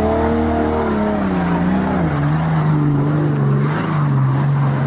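Jeep Wrangler engine revved hard and held high as it drives through a muddy ditch, the revs easing down a little about two seconds in and then holding, with the tyres churning through mud.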